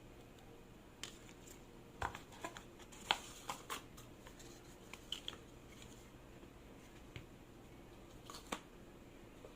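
Scattered small clicks, taps and rustles of phone packaging being handled, bunched in the first half and with two more near the end, over faint room tone.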